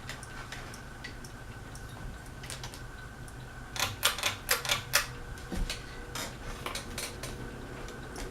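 Harbor Breeze Aristocrat ceiling fan running on high: a steady low motor hum with irregular light clicking, and a quick run of loud clicks about four seconds in.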